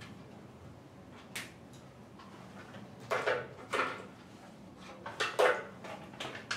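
Whiteboard eraser wiping across the board in short brushing strokes: a single stroke, then two longer ones about three seconds in, then a quicker run of strokes near the end.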